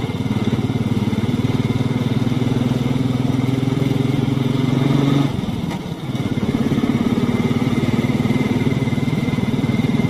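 Royal Enfield Classic motorcycle's single-cylinder engine running at a steady cruise with an even thumping pulse. About five seconds in it briefly eases off, then picks up again.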